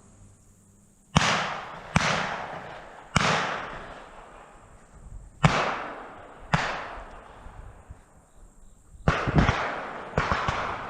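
A volley of shotgun shots at a flying dove: about eight sharp reports in irregular succession, two of them close together near the end, each echoing and dying away over about a second.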